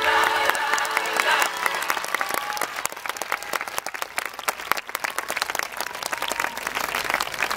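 Large audience applauding as the dance track ends, the last of the music fading out in the first second and a half.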